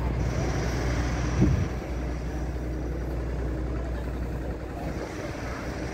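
Steady low rumble of vehicle traffic, with one brief louder thump about one and a half seconds in.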